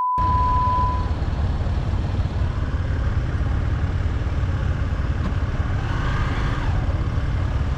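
A steady electronic beep, like a TV test-pattern tone, sounds for about the first second with the glitch transition. Then a motorcycle engine idles with a steady low rumble, amid city street traffic.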